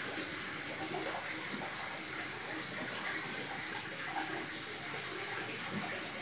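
Steady hiss of running water.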